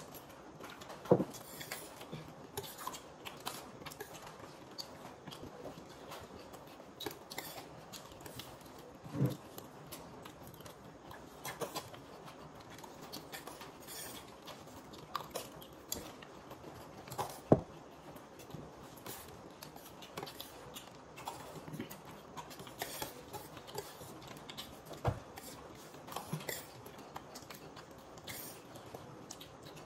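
People eating chatpate, a crunchy puffed-rice snack, from plates: scattered soft clicks and crunches, with four sharper knocks about eight seconds apart.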